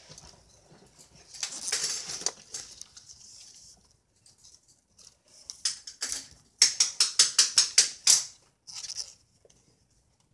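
Rustling handling noise, then a quick even run of about ten sharp taps, roughly six a second for about a second and a half, with a few more taps shortly after.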